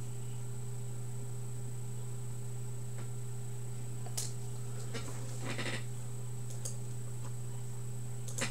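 Steady low hum with a faint high whine above it: room tone. A few faint clicks and rustles come about four seconds in, again near six seconds, and near the end.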